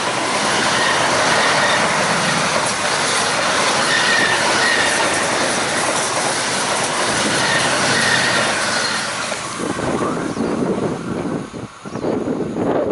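MTR East Rail line electric multiple-unit train passing close at speed: a steady, loud rush of wheel-on-rail noise with a faint high wheel squeal, thinning out after about nine seconds as the last cars go by.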